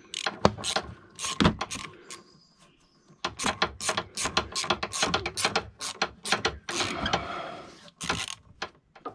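Hand ratchet clicking as a fastener is turned by hand, in quick runs of sharp clicks, about four or five a second: a short run at the start, a pause, then a longer run through most of the rest.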